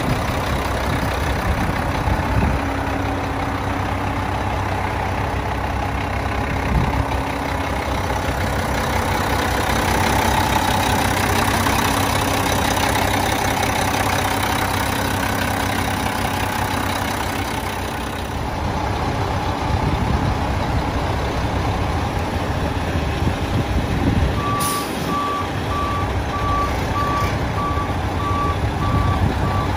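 Mack CL713's 12-litre inline-six diesel idling steadily. Near the end a backup alarm starts beeping in short, evenly spaced pulses at one pitch.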